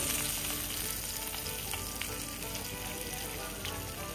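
Small whole fish frying in oil in a cast-iron skillet: a steady sizzle with a few faint clicks.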